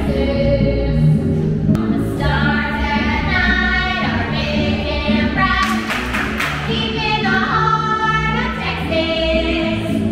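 Stage-show song: several voices singing together, women's voices to the fore, over a steady band backing.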